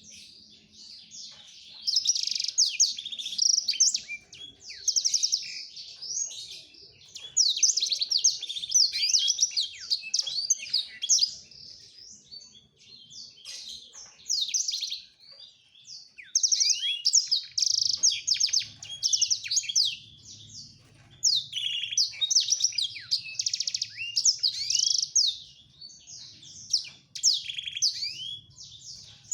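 Male blackthroat (black-throated canary) singing its courtship song to a female: long runs of fast, high twittering trills and warbles, broken into phrases of a few seconds by short pauses.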